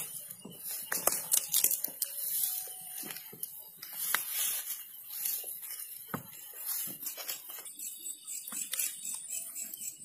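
Irregular crackling and rustling of dry grass and ground litter underfoot, with scattered clicks of handling noise.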